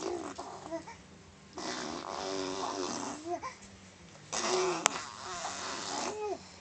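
Three long, breathy, raspy vocal noises, each lasting about one to two seconds and ending in a short pitched squeak that bends up and down.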